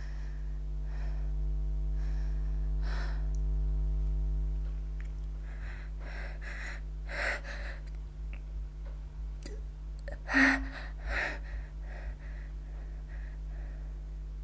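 A person's gasping breaths as a sneeze builds, then a short, muffled stifled sneeze about two-thirds of the way through, followed by another catch of breath and a few quick sniffs. A steady hum runs underneath.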